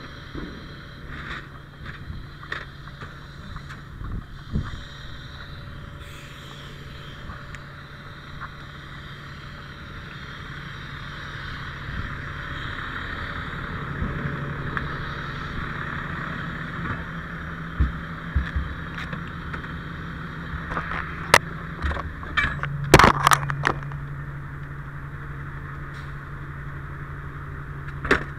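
Fire engine's diesel engine idling with a steady low hum, with knocks and clunks of gear and metal near the cab, loudest in a cluster a few seconds before the end.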